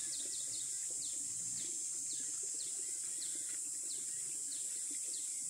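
A small bird chirping in short, falling notes, two or three a second, over a steady high-pitched insect drone.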